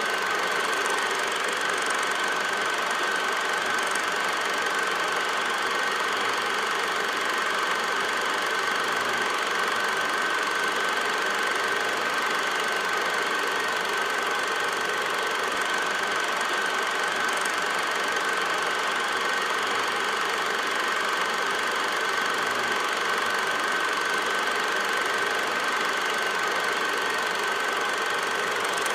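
8mm film projector running: a steady mechanical whir with a constant high whine, unchanging throughout.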